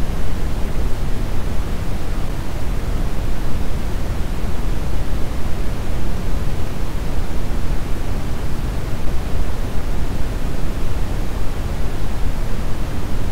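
Steady brown noise: an even, deep rushing hiss, strongest in the low end, with no changes or events.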